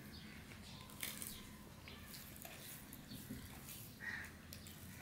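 Fingers mixing rice and curry on a plate: soft squelching with light clicks. About four seconds in, a short bird call.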